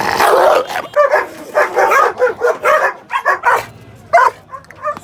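A large white dog, of the Dogo Argentino type, barking over and over in a fast run of short, loud barks, two or three a second.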